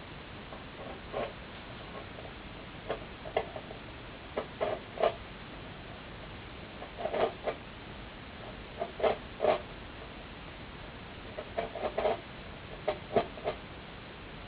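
Unexplained knocking and scraping on wood, coming in short irregular clusters of a few quick raps or scrapes every second or two, like something tapping at and gnawing or scratching at wood.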